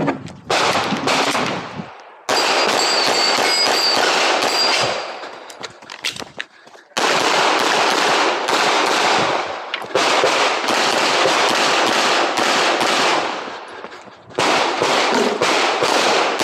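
Canik Rival 9mm pistol fired in rapid strings of shots, several bursts with short pauses between them as the shooter moves.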